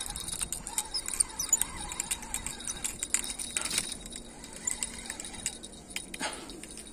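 Spinning fishing reel being cranked, giving a rapid run of small metallic clicks as a hooked fish is reeled in against a strong pull.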